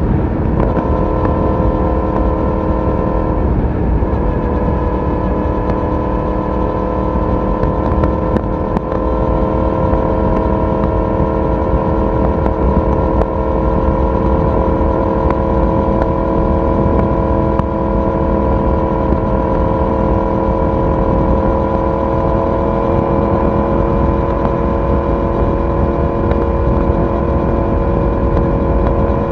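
Yamaha YZF-R1's crossplane inline-four exhaust at a steady cruise. The note dips briefly about three seconds in, then climbs slowly as the bike gently gains speed.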